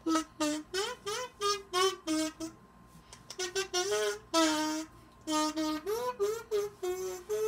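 Plastic kazoo hummed through to play a tune: a string of short buzzing notes with small pitch glides, breaking off briefly about two and a half seconds in and again near five seconds.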